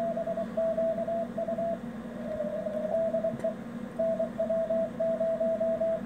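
Morse code from a CW beacon received on a software-defined radio: a single steady tone keyed in dots and dashes, over a low hum. The Si5351a beacon's 144 MHz signal is downconverted to 24 MHz and comes through as a really strong signal. The keying pauses about two seconds in and resumes about four seconds in.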